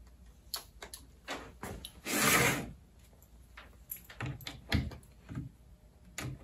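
A plastic circuit trainer box set down and slid on a wooden desk: a short scraping rush about two seconds in. Light clicks and knocks from handling test leads and the multimeter come before and after it.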